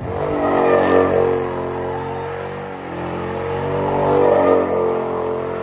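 A car engine revving, rising in pitch and loudness about a second in and again near the four-second mark.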